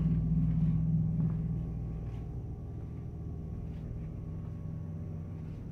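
Steady low hum that is loudest in the first second and a half, then eases off a little and carries on.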